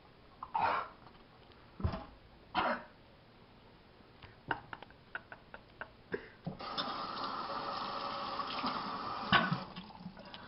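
A man coughing and spluttering after swallowing a foul homemade drink, then small clicks and a kitchen tap running for about three seconds.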